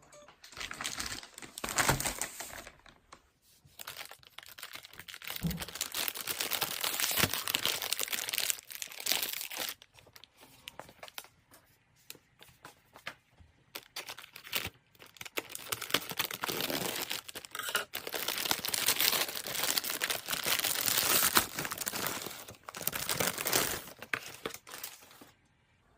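Crinkling and rustling of packaging being handled, in irregular bursts with short pauses between them.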